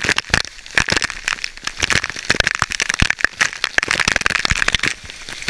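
Waterfall water pouring straight onto a GoPro camera's waterproof housing: a rapid, irregular run of sharp hits over a steady rushing hiss.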